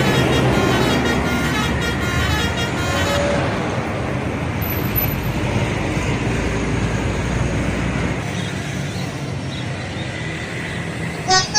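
A bus's multi-tone telolet horn plays a quick stepping tune for about the first three seconds over road noise. Then comes the steady noise of traffic and a heavy bus engine, whose low rumble drops away about eight seconds in.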